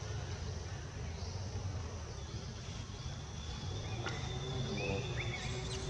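Outdoor background noise: a steady low rumble with a thin, steady high-pitched whine that comes in about two seconds in, a few short chirps, and a couple of faint clicks.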